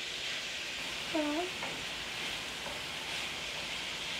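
Sliced vegetables sizzling steadily in a hot skillet while a utensil stirs them. A short hum of a voice comes about a second in.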